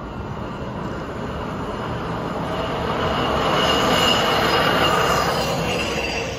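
Hi-rail pickup truck running along the railway track, its rail guide wheels on the steel rails. It comes closer and gets louder, is loudest about four to five seconds in as it passes, then fades, with a high steady tone through the pass.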